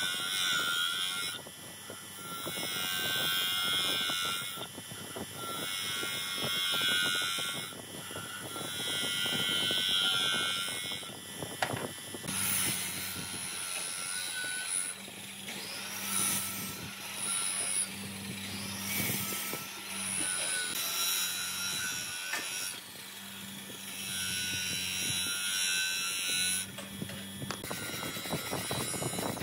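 Bench grinder running while a small pine workpiece is pressed against its abrasive wheel, grinding the wood in repeated passes of two or three seconds each. Near the end comes the rasp of the piece being rubbed by hand on sandpaper.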